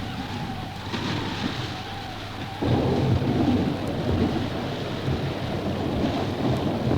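Old sound-effect recording of a thunderstorm: a hiss of rain under low rumbling. Thunder comes in suddenly about two and a half seconds in and rolls on.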